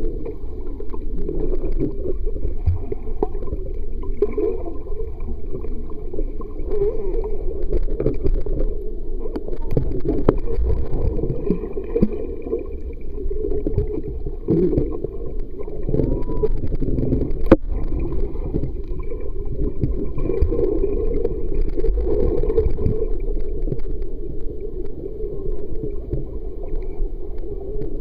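Swimming-pool water heard through a submerged camera: a steady, muffled churning and gurgling with little high end. A single sharp click comes a little past halfway.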